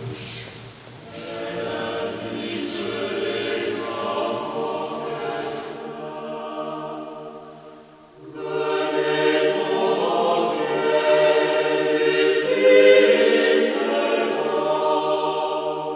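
A choir singing slow, held chords in several voices; the singing dips almost to nothing about halfway through, then comes back louder.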